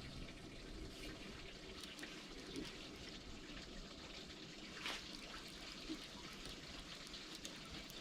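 Faint lapping and trickling of water, with a few soft splashes or ticks, the clearest about five seconds in.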